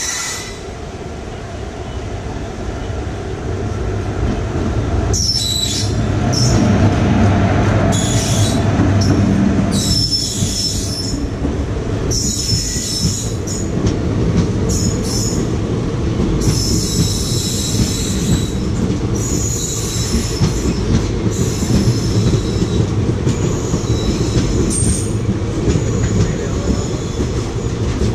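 A train of empty passenger coaches hauled by a WAP-4 electric locomotive running close past on the adjacent track. The wheels rumble steadily on the rails with repeated high-pitched wheel squeals. The rumble grows louder over the first few seconds as the locomotive arrives, then stays steady as the coaches pass.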